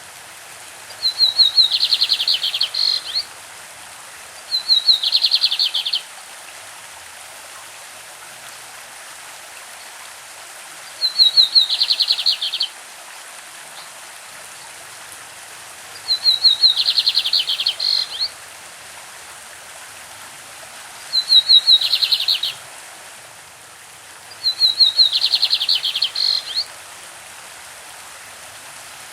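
Lined seedeater (bigodinho) singing its classic song: six short phrases, each a few high notes running into a fast trill, with pauses of a few seconds between them. Under it runs the steady rush of a stream.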